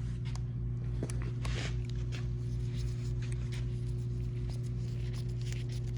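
Small clicks and light taps of a small bolt being threaded in by hand to hold a brake-sensor magnet on a handlebar. A steady low electrical hum sits underneath.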